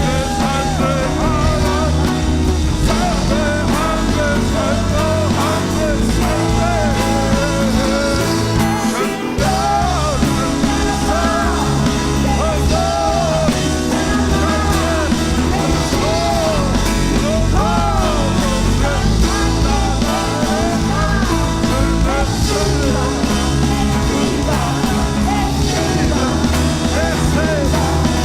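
Loud band music with a singer: a sung melody over a full band with a steady beat. It drops out briefly about nine seconds in.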